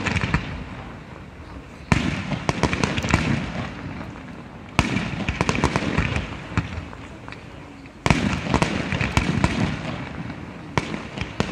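Aerial firework shells bursting in three volleys about three seconds apart. Each starts with a sudden bang and is followed by a quick run of smaller pops and crackles that slowly fades.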